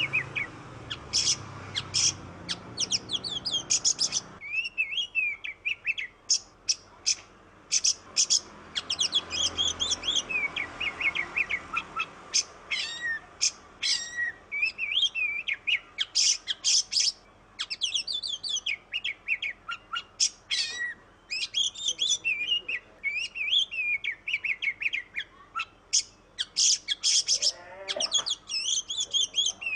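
Oriental magpie-robin (kacer) singing continuously in a loud, varied song of rapid chirps, whistled phrases and trills, broken only by short pauses.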